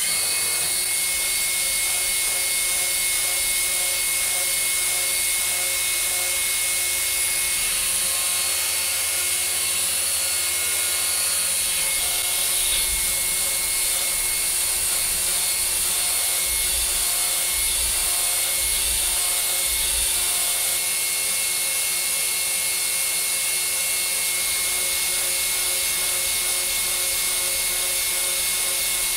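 CNC milling machine spindle running a solid carbide end mill at about 7,000 rpm, roughing 42CrMo4 alloy steel: a steady whine with a strong high hiss throughout.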